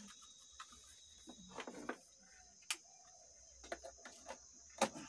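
Steady high-pitched insect chirring, like crickets, with scattered faint clicks and knocks of cables being handled; the sharpest click comes near the end.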